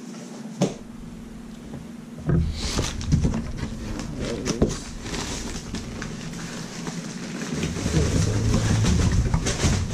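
Large corrugated cardboard shipping box being opened by hand: the lid and flaps are lifted and folded back, scraping, rustling and knocking against each other, with the handling starting in earnest about two seconds in.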